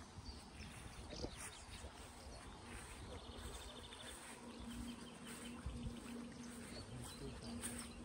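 A flying insect buzzing in a low, steady, slightly wavering hum that starts about three seconds in, with a few faint high chirps and a short rapid trill over the quiet outdoor background.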